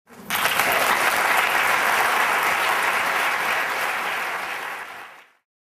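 Audience applauding, a dense patter of many hands clapping that fades over the last second or so and then stops abruptly.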